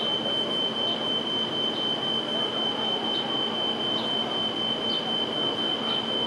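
Smoke alarm going off, sounding one unbroken high-pitched tone over a steady rushing background noise.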